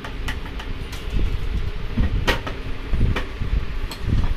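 Hard plastic clicks and knocks as a water purifier's white plastic filter housing is handled and fitted, several short sharp ones with the loudest a little past halfway, over a steady low rumble of street traffic.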